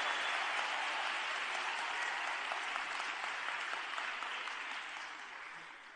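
Audience applauding, the clapping dying away gradually toward the end.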